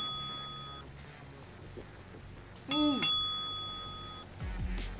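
Edited-in cartoon sound effect: a bright bell-like ding, each with a quick rising-and-falling boop in front of it, heard at the start and twice in quick succession about three seconds in, each ringing on and fading. Light background music plays underneath.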